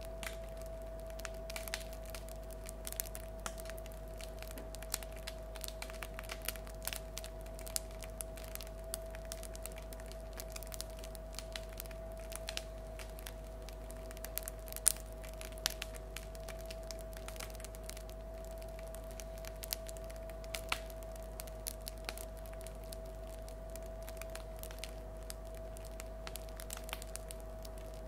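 Crust of a freshly baked loaf of bread crackling as it cools, the bread 'singing': irregular small cracks and ticks, several a second, with one sharper crack about halfway through. A steady faint hum runs underneath.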